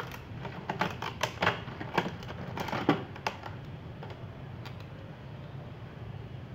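Thin plastic water jug crackling and clicking as it is handled and turned over, a quick irregular run of sharp crackles over the first three seconds, then only a steady low hum.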